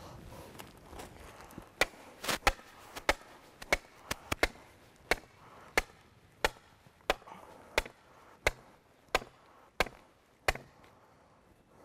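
A hammer driving a wooden silt-fence stake into the ground: about sixteen sharp knocks at a steady pace of roughly one and a half a second, starting about two seconds in and stopping near the end.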